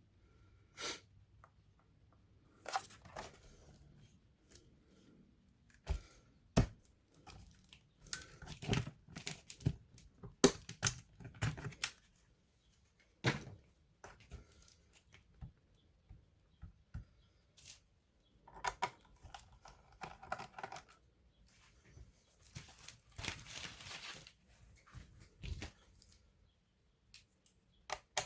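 Irregular clicks, knocks and scraping of plastic and small tools as the Asus A42F laptop is handled and taken apart, with a few longer rustling scrapes between the sharp taps.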